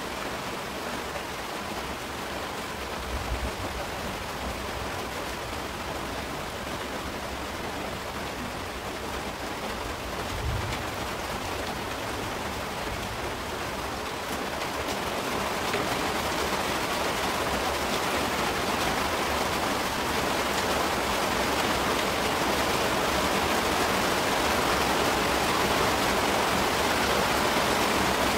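Heavy rain falling, a steady even hiss that grows louder about halfway through, with a couple of soft low thumps early on.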